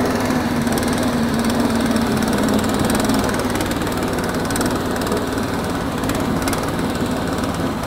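SnowDog Sport B13 MER tracked motorized sled, its small gasoline engine running steadily under load as the machine drives forward across grass.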